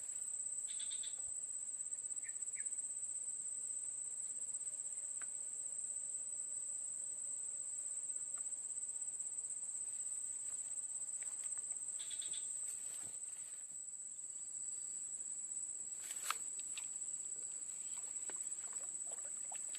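Steady, high-pitched drone of an insect chorus, with a few faint short chirps and a single sharp click late on.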